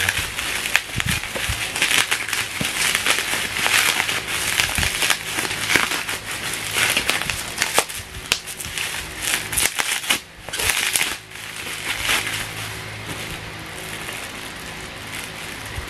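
Plastic packaging, bubble wrap and clear plastic film, crinkling and crackling as it is pulled off a small cardboard box by hand. The crackling is dense for about twelve seconds, then thins out and gets quieter.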